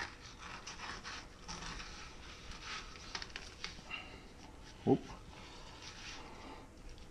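Flexible fillet knife slicing through a walleye's flesh and skin on a wooden cutting board: faint, irregular scraping with small clicks, with close breathing and one brief, louder sound about five seconds in.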